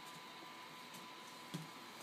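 Quiet room tone with a faint steady hum and one soft, dull thump about one and a half seconds in.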